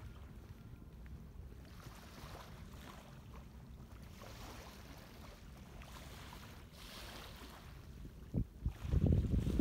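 Wind on the microphone over small waves lapping against a concrete seawall; near the end, strong gusts buffet the microphone loudly.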